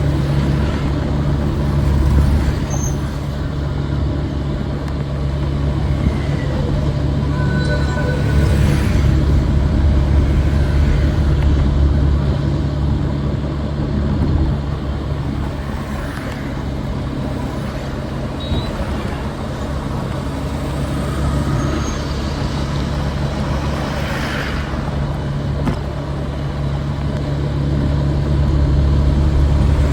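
Street traffic: a steady low engine rumble, with vehicles passing by a few times.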